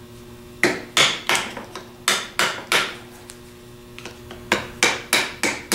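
Hammer striking a screwdriver set against the raised ribs of the threaded plug in a 42MT starter's drive housing, knocking the plug counterclockwise to loosen it. Sharp metal taps come in three short runs, a few taps a second.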